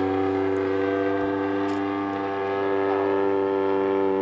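Engine of a giant-scale radio-controlled Spitfire model in flight, a steady drone at nearly constant pitch.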